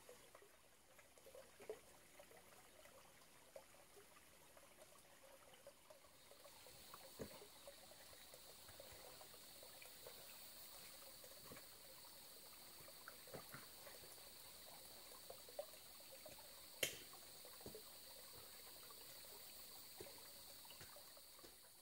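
Faint trickling of a small mountain stream cascading over rocks, with scattered light knocks and scuffs of boots on rock. About six seconds in a steady high-pitched hum sets in, and a single sharp click stands out near the end.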